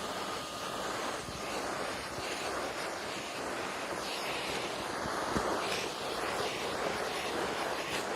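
Six-gallon shop vac running as its hose sucks up snow: a steady rush of air with a few short ticks. A faint thin whine fades out about a second and a half in.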